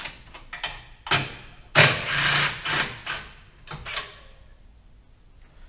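Metal clicks and knocks of a tool working on a 10 mm bolt that holds a Renault Twizy's traction battery charging unit, with a louder noisy burst about two seconds in that lasts about a second, then a few more knocks.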